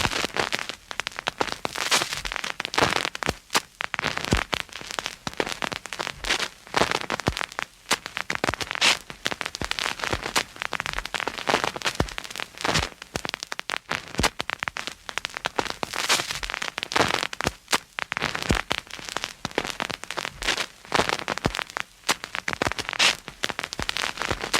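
Antique phonograph needle running in the groove of a spinning record, giving a steady stream of irregular crackles, pops and scratches of surface noise with no music heard.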